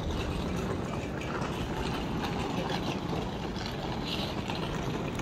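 Steady hubbub of a busy railway station concourse: a low rumble with footsteps and the wheels of rolling suitcases on the tiled floor.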